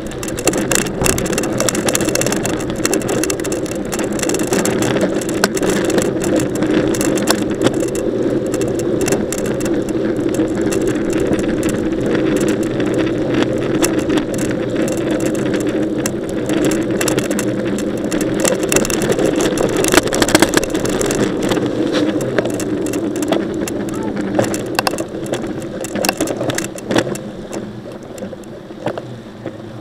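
Mountain bike in motion, heard close up on an action camera carried on the ride: steady rolling and wind noise with constant rattling clicks. It quietens near the end.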